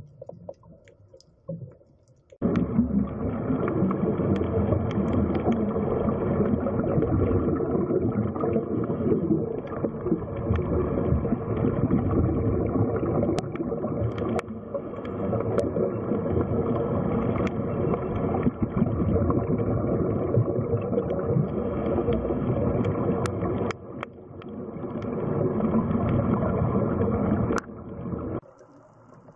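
Steady rushing, rumbling water noise picked up by an underwater camera, with a few sharp clicks. It cuts in sharply a couple of seconds in and cuts out near the end.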